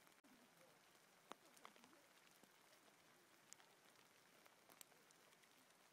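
Faint hail falling on a forest floor: a soft steady hiss with scattered sharp ticks of hailstones striking twigs and leaf litter, the loudest about a second in.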